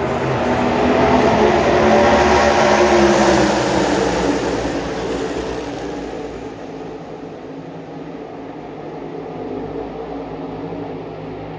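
NASCAR Cup Series V8 stock cars racing past in a pack. Their engine roar builds to a peak about two to three seconds in, drops in pitch as they go by, then fades, with a smaller swell near the end.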